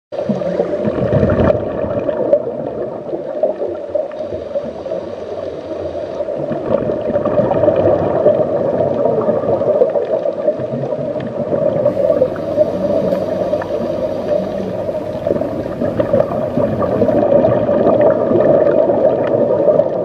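Steady underwater gurgling and rushing of water, with no distinct calls.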